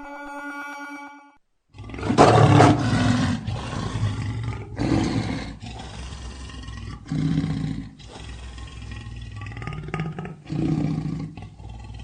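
Lion roaring: a loud full roar starts about two seconds in, followed by several shorter roars a couple of seconds apart.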